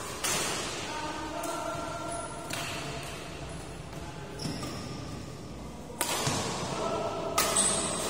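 Badminton rackets striking a shuttlecock during a doubles rally: about five sharp hits, with a gap of a few seconds midway, each echoing briefly in the hall.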